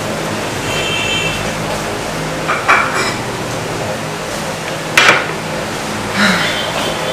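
Drinking glasses and a metal spoon and fork clinking against tableware: a brief glassy ring about a second in, then a few sharp clinks, the loudest about five seconds in, over a steady background hiss.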